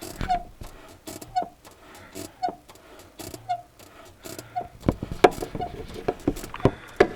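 Renault Duster 2's clutch squeaking in short chirps about once a second as the pedal is worked, with clicks and knocks, heard under the bonnet at the clutch master cylinder. The owner blames the clutch master cylinder here; it is a squeak that appears only once the car is warmed up, and the clutch release bearing was replaced for it under warranty.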